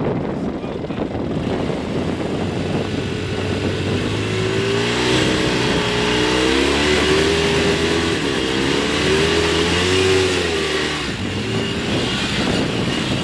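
Polaris RZR side-by-side's engine working under load as it climbs out of a rock crack, revving up and down repeatedly from about four seconds in and easing off near the end.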